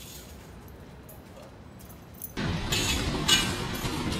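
Faint background noise, then, a little over two seconds in, an abrupt start of bright jingling and clinking that carries on to the end.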